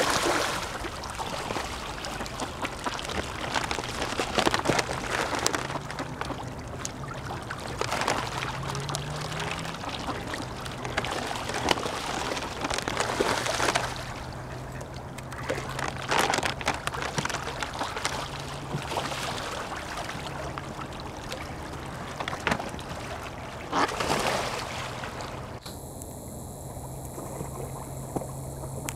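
Water splashing and churning as a crowd of mallard ducks and Canada geese paddle and jostle at the surface, with irregular splashes over a steady low hum.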